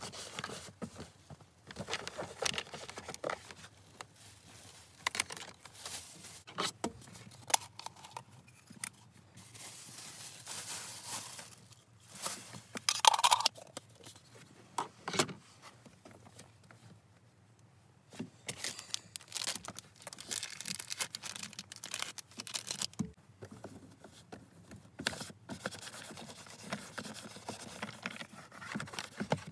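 Cloth rubbing and wiping over a car's plastic interior trim, with rustling, scrapes and scattered small clicks and knocks of hands and objects against the console and steering wheel. The loudest rubbing comes about halfway through, followed by a short lull.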